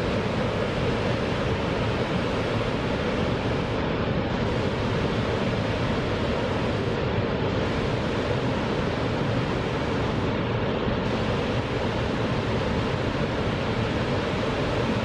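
Koshibu Dam's single conduit gate discharging: a jet of water blasting out and crashing into the plunge basin, a steady, dense rushing roar.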